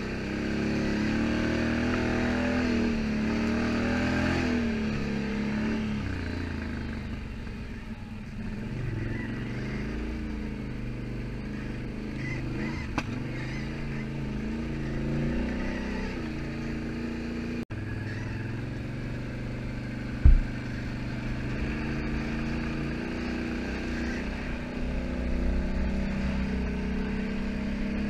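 Can-Am Outlander ATV engine running under way, its pitch rising and falling as the throttle is opened and eased, heard from the rider's seat. A single loud low thump comes about twenty seconds in.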